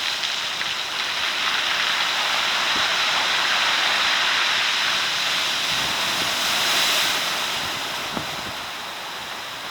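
Rough surf washing in and out over a beach of round cobblestones, stirred up by an approaching typhoon; the hiss of water and stones swells to a peak about seven seconds in, then eases.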